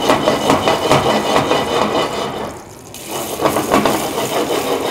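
Butter browning in a stainless steel sauté pan, sizzling and crackling as a Dover sole fillet is laid in to sear. The sizzle dips briefly a little past halfway, then picks back up.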